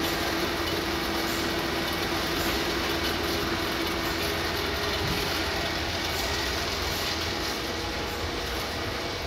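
Steady mechanical running noise of a fruit-packing traysealer line, its conveyor belts and machinery working continuously. A steady hum fades out about halfway through.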